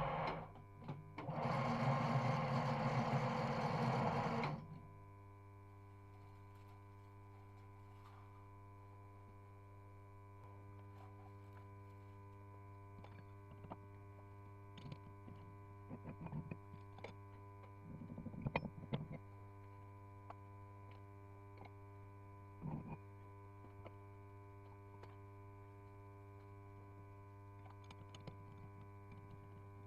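A loud burst of harsh noise for about the first four seconds, then a metal lathe's electric drive humming steadily with scattered small clicks and knocks.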